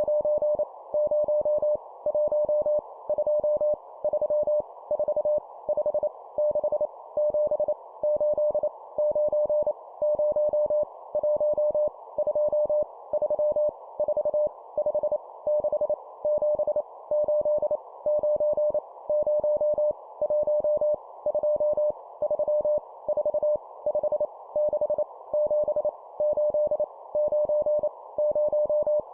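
Morse code (CW) numbers sent at 25 words per minute: a single steady mid-pitched beep keyed rapidly on and off in quick groups, over a steady hiss.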